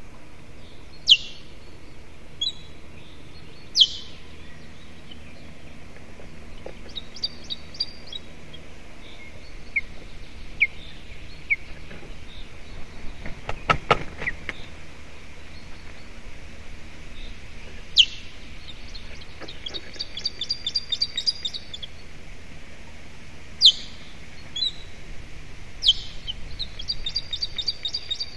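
Osprey alarm calls: sharp, high single chirps and rapid runs of repeated whistled notes, several times over. About halfway through comes a short burst of rustling and knocking as an osprey lands on the stick nest.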